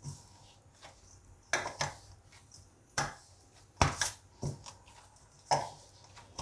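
Hands kneading a firm ball of maida (refined flour) dough in a stainless steel bowl: the dough is pushed and pressed against the metal bowl, giving about seven sharp, irregular knocks and thumps.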